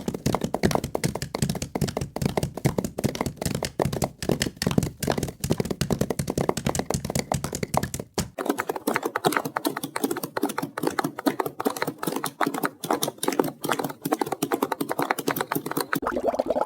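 Custom-made Gorosaurus monster sound effect: a rapid clicking, rattling chatter of several clicks a second. A low rumble under the clicks drops away about eight seconds in.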